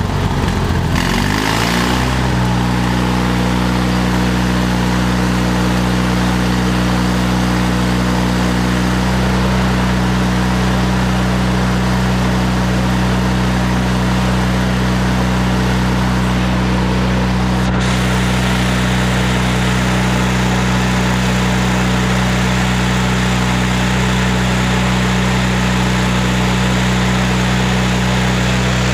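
Miller Bobcat 250 engine-driven welder-generator running: its engine shifts speed in the first couple of seconds, then holds a steady drone.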